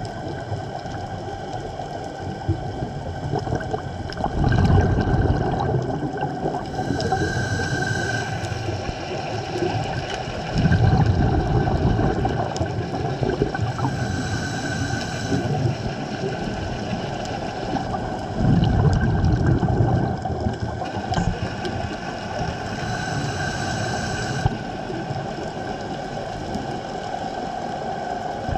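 A scuba diver breathing through a regulator underwater: a rumbling, bubbling exhale about every seven to eight seconds, each followed a little later by a shorter hissing inhale, over a steady background hum.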